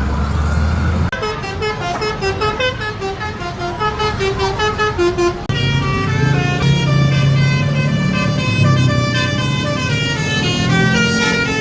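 Bus 'telolet' musical horn playing a tune: about a second in comes a fast run of short staccato notes, and from about halfway it switches to longer held notes of several tones at once, over the bus engine's low running drone.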